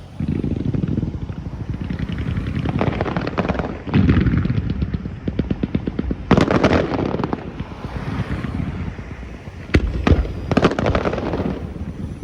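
Fireworks display: booming bursts followed by rapid crackling, in several volleys, with the loudest about four and six seconds in and a few sharp single bangs near ten seconds.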